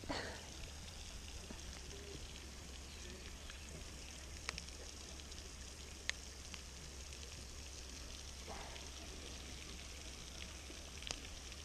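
Faint, steady hiss of a pond fountain's spray falling on the water, with a few single sharp clicks scattered through it.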